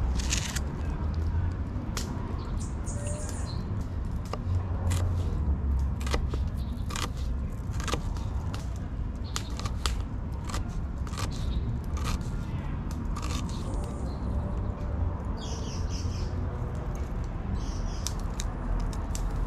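Kitchen knife cutting onion and herbs on a wooden cutting board: irregular taps and crunchy cuts over a steady low rumble.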